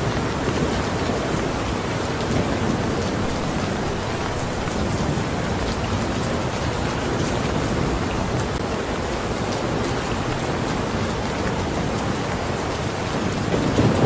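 Steady rain falling, with fine patter of drops; a low rumble of thunder swells near the end.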